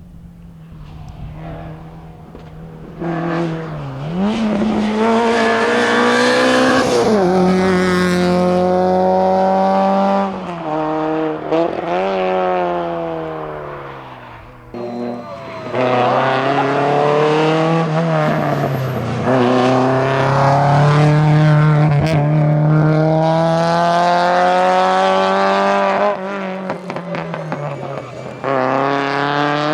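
Rally car engine at full throttle, its pitch climbing hard through each gear and dropping back at every change, the car running flat out through the stage.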